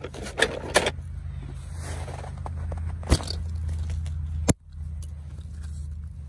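A rubber balloon pops sharply about four and a half seconds in. Before it come crinkling and crackling handling noises and a few sharp clicks, all over a steady low rumble.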